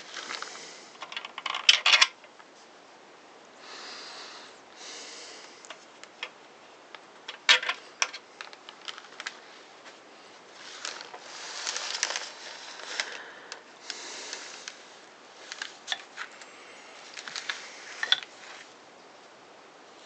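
Circular saw parts and tools being handled during reassembly: scattered clicks, knocks and short rubbing sounds, with sharp clacks about 2 s and 7.5 s in.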